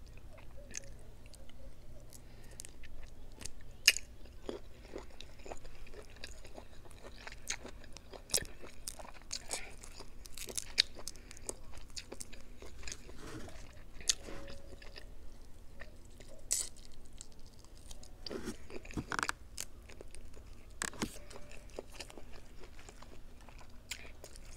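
A person chewing and biting into seafood boil food, jumbo shrimp in hand, with irregular small clicks and crackles throughout.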